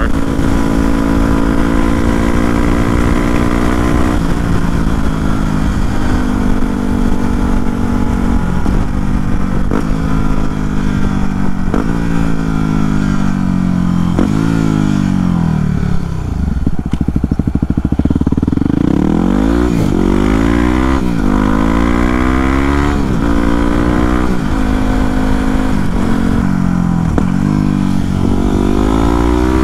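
Yamaha WR250R's 250 cc single-cylinder engine under way, heard from the rider's seat: steady cruising at first, easing off to a low note about halfway through, then pulling hard again, its pitch climbing and dropping several times as it shifts up through the gears.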